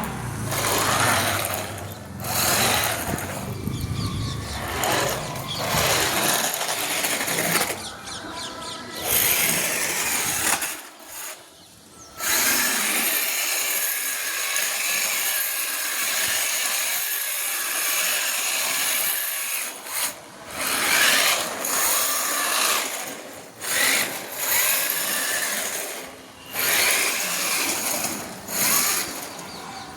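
Electric motor of a toy RC drift car whining, like a small drill, as it speeds up and slows with the throttle. It cuts out briefly several times.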